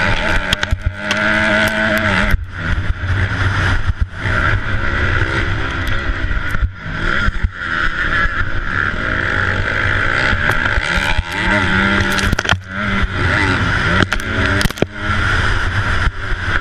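A 250 four-stroke motocross bike's engine being ridden hard: it rises and falls in pitch again and again as the throttle is opened and shut, with several short sudden dips when the throttle is chopped. It is heard from a helmet-mounted camera.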